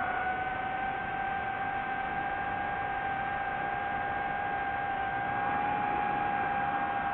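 DJI FPV drone's motors and propellers whining at a steady pitch over rushing air noise, the pitch settling up just at the start and holding level, as at constant throttle.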